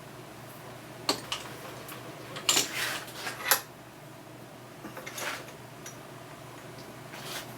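Metal tools and parts clinking and knocking on a workbench, with a few short scrapes, over a steady fan-like hum.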